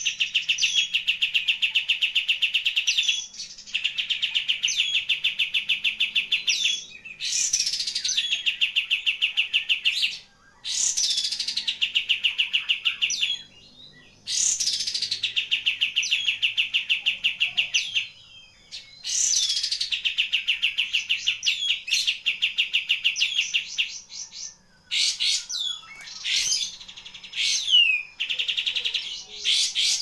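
Kapas tembak bulbul singing: about six long, rapid trills of quickly repeated notes, each lasting around three seconds with short breaks between them, followed near the end by shorter, varied chirps.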